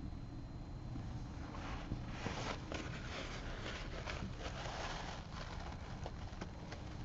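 A watercolor paintbrush tapping and scrubbing against a hard surface: a run of quick clicks and scratches starts about a second and a half in, is busiest in the middle, and thins out near the end.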